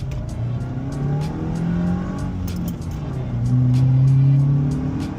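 2008 Subaru Legacy's 2.5-litre flat-four engine heard from inside the cabin, accelerating on the move through a freshly fitted cold air intake. The pitch rises twice, and the second pull, near the end, is the loudest.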